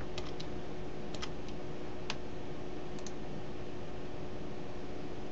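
Scattered sharp clicks of a computer mouse, about eight of them in the first three seconds, over a steady background hiss with a faint hum.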